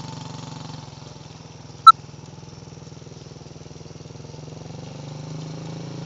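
Small engine of a child's four-wheeler running steadily at low speed, getting louder over the last second or two as the quad comes closer. A single short, sharp high sound about two seconds in is the loudest moment.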